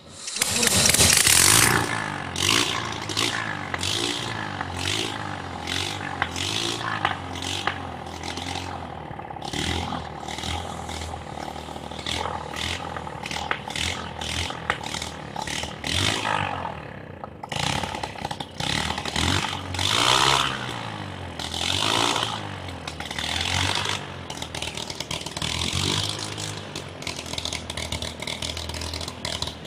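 Small air-cooled petrol engine with water injection running on a test rig, its revs rising and falling, with a loud burst of revving right at the start.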